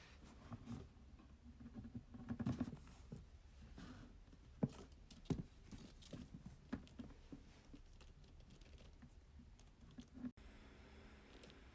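Quiet handling sounds: soft rustling and scattered light clicks and taps, with a denser rustle about two seconds in and two sharper clicks around five seconds in.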